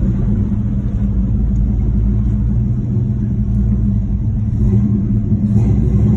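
1968 Pontiac GTO's 400 V8 engine running steadily as the car cruises in third, its top gear, with a steady low drone.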